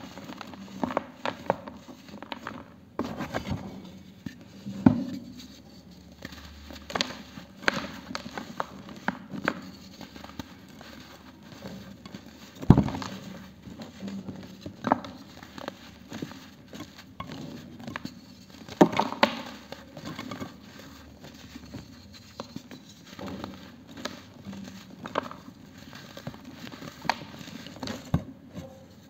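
Hands crushing and crumbling dry cement pieces and powder: irregular crunches and crackles with loose grit pattering, a few crunches much louder than the rest.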